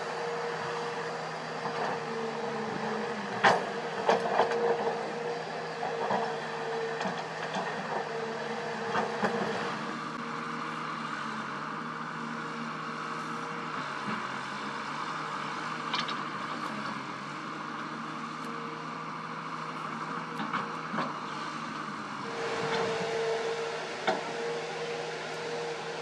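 Kobelco SK200 hydraulic excavator working: steady diesel engine hum under a steady whine, with scattered knocks and clatter from the bucket in rock and dirt, the loudest about three seconds in. The whine drops away for a while in the middle and comes back near the end.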